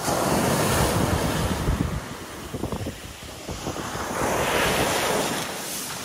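Ocean surf: small waves breaking and foamy water washing up the sand at the water's edge. It comes in two surges, one right at the start and a second swelling about three and a half seconds in.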